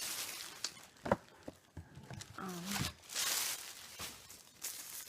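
Rustling and handling of takeout food packaging, with a sharp click about a second in and a brief low vocal murmur midway.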